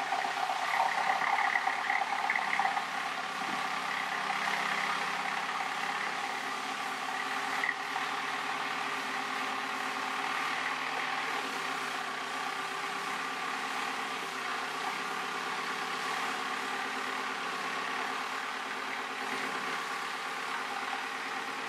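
A motor running steadily: a continuous hum with a slightly wavering pitch over a steady hiss, a little louder in the first few seconds.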